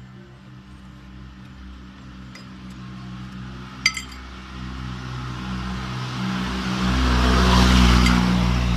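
A steady machine hum with a single sharp metallic clink about four seconds in, then a hiss that swells and grows louder over the last few seconds.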